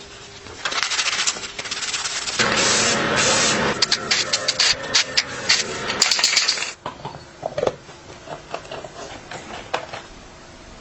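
Rapid mechanical clicking and rattling over a hissing noise, loudest for a few seconds in the middle, then dropping off about seven seconds in to scattered lighter clicks.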